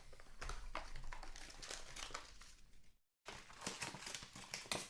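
Upper Deck Ice hockey card pack wrappers crinkling and rustling in the hands as packs are opened, in irregular crackly bursts, with a brief gap about three seconds in.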